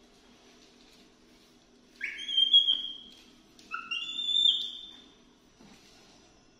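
A young pet macaque giving two high, whistle-like calls, each rising then holding, the second a little longer.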